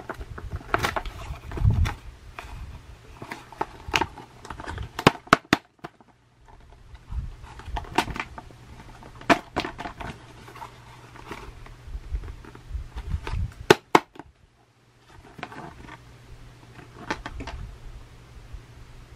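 Irregular sharp clicks and knocks, with a cluster of loud ones about five seconds in and two more near fourteen seconds, over a low steady hum.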